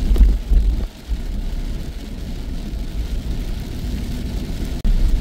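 Car driving on a wet road, heard from inside: a steady low rumble of engine and road noise, with a brief dip about a second in and a sudden break near the end.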